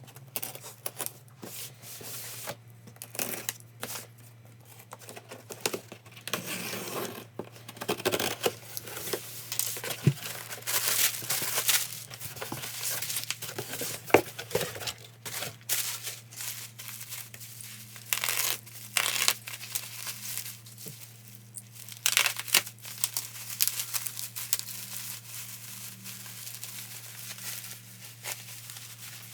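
A package being opened by hand: packaging and plastic wrapping torn and crinkled in irregular bursts, with a couple of sharp snaps, over a steady low hum.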